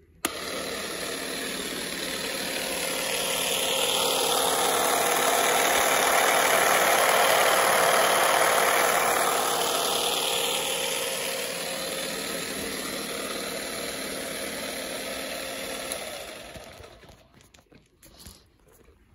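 Parkside X20V cordless pole tool's electric motor and cutting head running unloaded on an AX Power 20V battery: a click at switch-on, then a steady motor hum and clatter that swells louder midway, and winds down for about a second and a half after the trigger is released.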